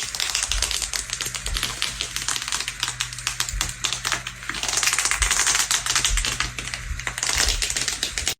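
Leather being handled, creaking and crackling in a dense run of rapid small clicks that swells louder in places, over a faint steady low hum.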